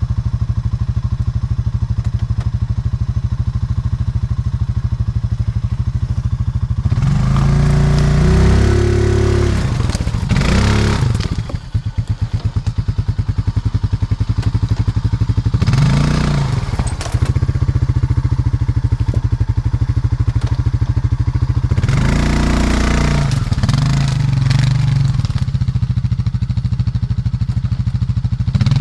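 A Honda single-cylinder four-stroke off-road engine idling steadily, revved up and let back down three times: about a quarter of the way in, near the middle and about three-quarters through.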